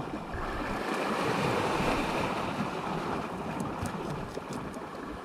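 Sea waves washing on the shore with wind buffeting the microphone; the wash swells about a second or two in and then eases off. A few faint high clicks come through later on.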